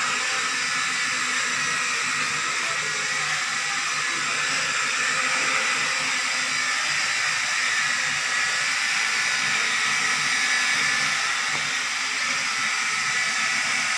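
Q501 toy quadcopter's four motors and propellers running in flight, a steady high buzz that holds at an even level.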